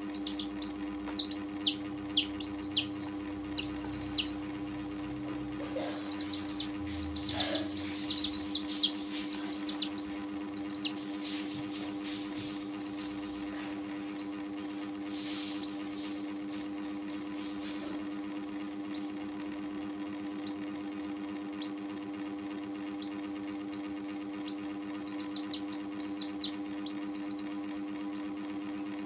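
Baby chicks peeping: many short cheeps, each falling in pitch, coming thick in the first ten seconds, then sparser, and picking up again near the end, over a steady low hum.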